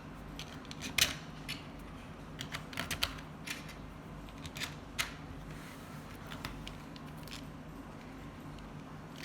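Small hard clicks and taps of acrylic plates and long screws being handled as the screws are put through the stacked layers, with the sharpest clicks about a second in and around five seconds, thinning out in the second half. A steady low hum runs underneath.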